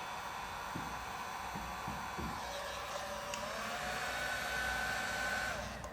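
Heat gun or hair dryer blowing with a steady rushing hiss while warming tint film on a headlamp, with a few faint low knocks in the first half.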